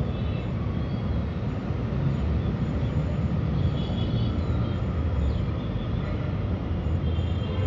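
Steady low outdoor background rumble, with a few faint high chirps around the middle and near the end.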